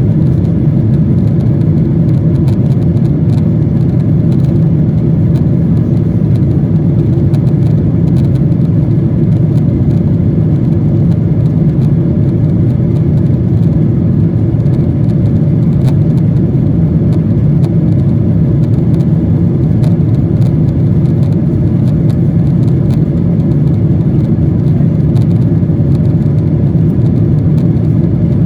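Passenger aircraft cabin noise: a loud, steady low drone of engines and airflow, unchanging throughout.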